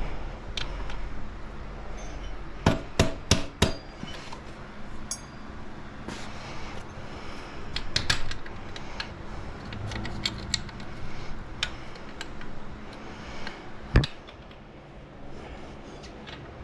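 Hammer-like knocks and metallic clinks of hand tools on the motorcycle's rear axle and wheel parts: a quick run of four strikes about three seconds in, another knock near eight seconds, and one hard knock about fourteen seconds in, with small clicks in between.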